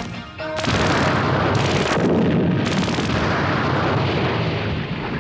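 Cartoon explosion sound effect: a sudden loud blast about half a second in, then a long rumble that slowly dies down.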